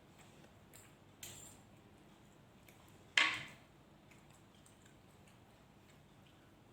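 Eating at a table: faint small clicks of chewing and handling food. There are two short, sharp clatters, a small one about a second in and a louder one about three seconds in, each fading quickly.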